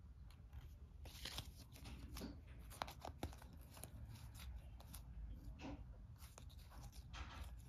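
Cardboard game cards being fanned out and slid against one another in the hand, a few faint scattered swishes and soft clicks.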